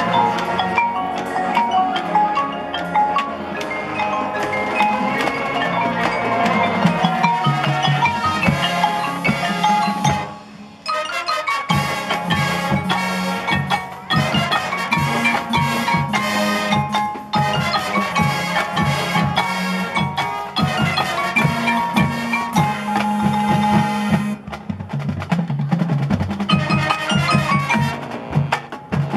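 High school marching band playing its field show, brass and winds over front-ensemble mallet percussion such as marimba and xylophone, with drums. The music drops away briefly about ten seconds in, then the full band comes back in with sharp, accented percussion hits.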